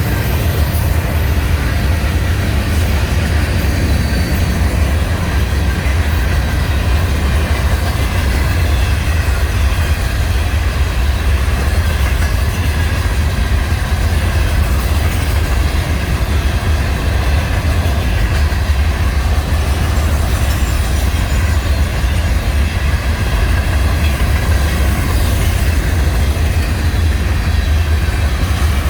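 Florida East Coast freight train rolling past at close range: a loud, steady rumble of the cars' wheels on the rails, unbroken throughout.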